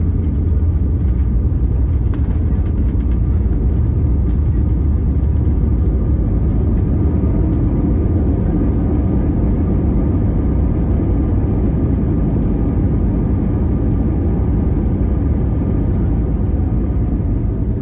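Airbus A320neo landing rollout heard from the cabin just after touchdown, with the ground spoilers deployed: a loud, steady, deep rumble of engines and airflow as the aircraft decelerates on the runway. Faint tones drift slowly lower through it.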